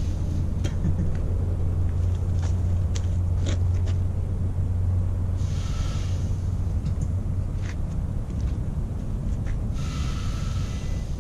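Home-built wood-fuelled turbocharger furnace (a turbocharger driving a furnace) running with a steady deep rumble and scattered sharp ticks. Two bursts of hissing, about five and a half and ten seconds in, come as water is injected into the hot exhaust and flashes to steam.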